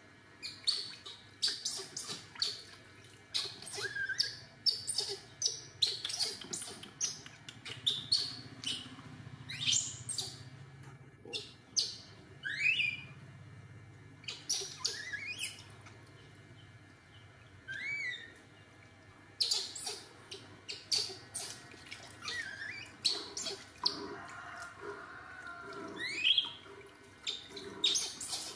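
A baby monkey gives about half a dozen short, rising, high-pitched squeaks while being bathed, among many brief splashes of water and handling knocks in a plastic tub.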